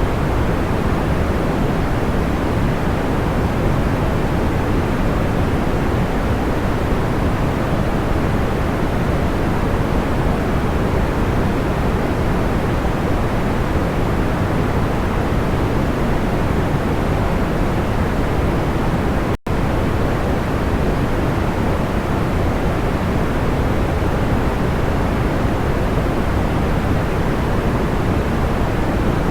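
Steady, even synthetic noise of the pink-noise kind: a soft, full hiss weighted toward the low end, without crackles. A momentary dropout about two-thirds of the way through.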